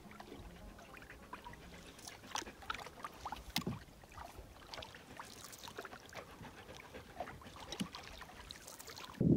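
Canoe being paddled: light splashes and drips of water off the paddle blade, faint and scattered.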